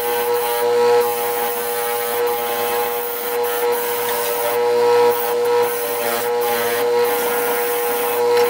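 Wire wheel on an old electric motor scrubbing rust off a metal vise part: a scratchy hiss of wire on metal over the motor's steady hum. The hiss breaks off briefly a few times when the piece is lifted off the wheel.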